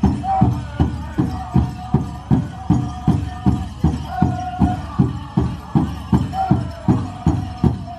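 Powwow drum played in an even, steady beat, about two and a half strokes a second, with a group of singers' voices holding long notes over it.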